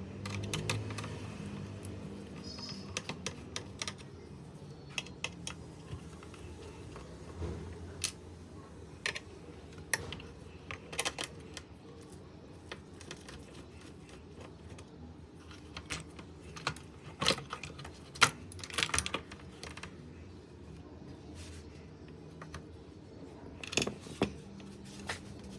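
Irregular light clicks and taps of small plastic and metal parts and tools being handled while servicing a radio cassette recorder's mechanism, with a cluster of louder clicks about two-thirds of the way through.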